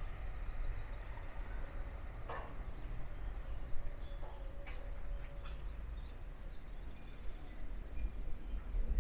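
Outdoor ambience: a steady low rumble of wind on the microphone, with a few faint, short bird calls.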